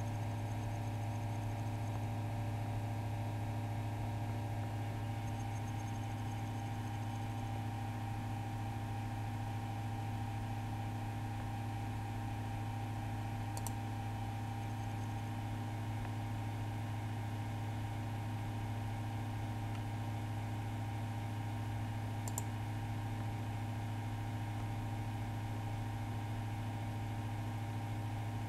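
Steady low electrical hum with fainter steady tones above it, broken by two sharp computer-mouse clicks about eight seconds apart, midway through.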